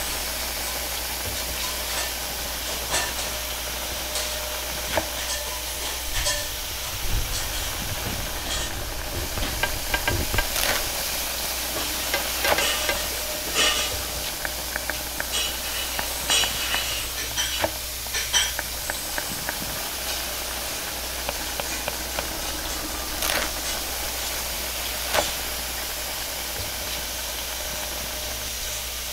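Steady hiss of a wok's gas burner and steam, with sizzling and a string of sharp metal clinks and scrapes from a ladle stirring in the wok, busiest in the middle stretch.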